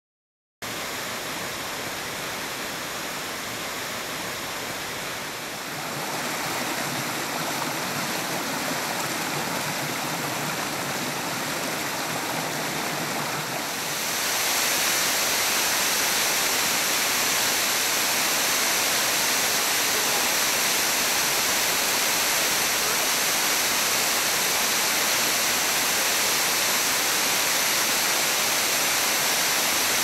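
Small waterfall rushing steadily over rock ledges, a continuous roar of falling water. It starts about half a second in and grows louder in two steps, about six and fourteen seconds in.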